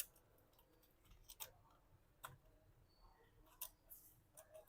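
Near silence with a handful of faint, scattered clicks from small laptop parts being handled during reassembly.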